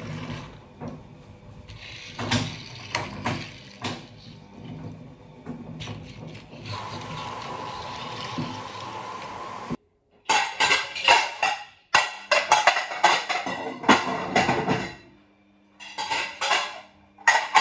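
Dishes and cutlery clinking and clattering as they are handled, in several stretches of quick knocks that stop abruptly a couple of times.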